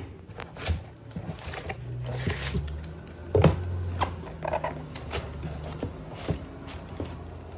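Cardboard boxes being handled and shifted: scattered knocks, scrapes and rustles, with a sharper knock about three and a half seconds in, over a low hum.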